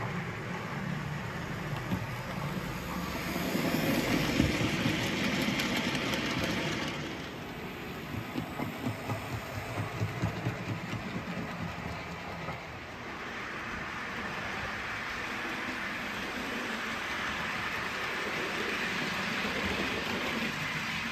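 OO gauge model diesel locomotive running on a layout: a steady diesel engine sound with spells of louder hiss, and a run of rhythmic clicks from the wheels over the rail joints partway through.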